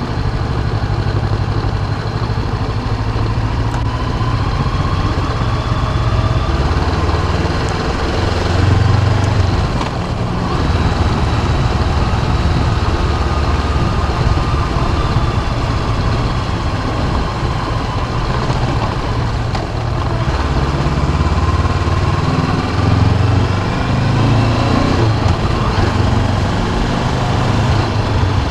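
2019 Honda CB500X's parallel-twin engine running while the bike is ridden, with a faint whine whose pitch slowly rises and falls with the revs.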